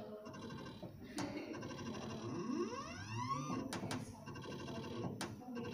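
Motorised plate stage of a CAMAG TLC Scanner 4 moving the TLC plate under the light spot, its motor giving a whine that rises in pitch over about a second in the middle, with a few sharp clicks.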